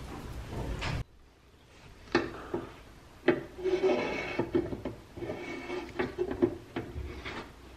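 Steel axle rod being worked through the holes of a painted pressed-steel toy-car chassis: metal-on-metal scraping and squeaking, with several sharp clicks and knocks.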